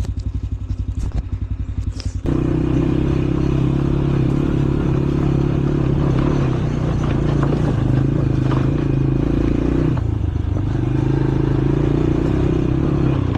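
Four-wheeler's small single-cylinder Loncin engine putting at a fast even pulse. About two seconds in it is throttled up into a louder steady run as the ATV is ridden. It eases off briefly about ten seconds in, then picks up again.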